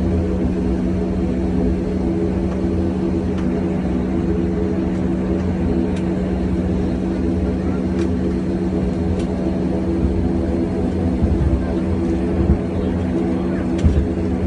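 Steady drone inside an airliner cabin: engine and airflow noise with a low, even hum, and a few faint ticks.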